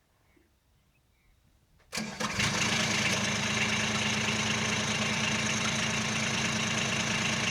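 Glow-plug diesel engine of a tow-and-blow frost fan cranking and firing about two seconds in, after its glow-plug preheat, then settling into a steady idle.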